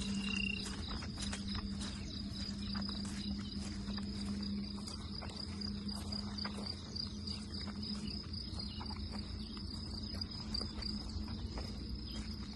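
Insects chirping in a steady, fast-pulsing high-pitched trill, over a steady low hum, with scattered faint clicks.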